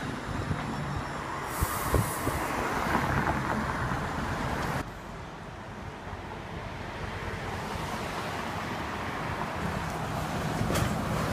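City bus traffic: a TTC Orion VII hybrid-electric bus turns through the intersection amid street noise, with a few short knocks. After an abrupt change about five seconds in, another city bus drives toward the listener, its engine running louder and louder toward the end.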